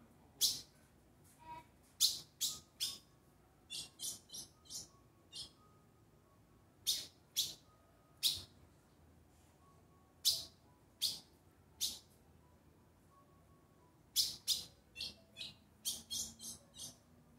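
Ultramarine grosbeak (azulão), a bird coming out of its molt, giving short, sharp chip calls: some single, some in quick runs of three to five, with pauses of a second or more between.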